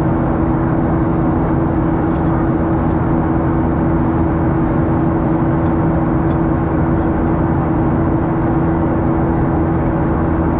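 Boeing 737 passenger-cabin noise in flight: a steady rushing drone of engines and airflow with a constant low hum under it.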